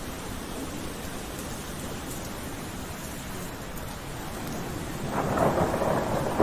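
Steady rain falling, with a louder swell of noise starting about five seconds in.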